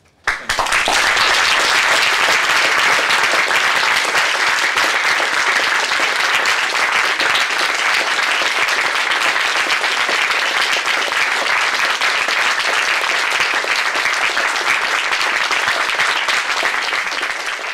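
An audience of students applauding at the close of a lecture: a dense, steady clapping that starts abruptly and begins to fade near the end.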